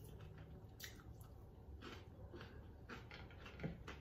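Faint chewing of fried chicken wings, with a scatter of soft wet mouth clicks.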